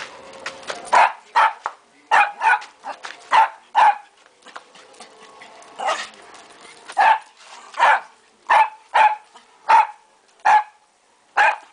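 Small white dog barking repeatedly: short, sharp, high-pitched barks, singly and in quick pairs, with a pause of about two seconds partway through.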